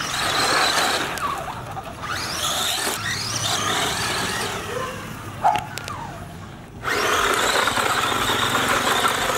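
Electric motor of a toy remote-control car whining, rising and falling in pitch as it speeds up and slows down. There is one sharp knock about five and a half seconds in. Near the end the motor settles into a steady, even whine at speed.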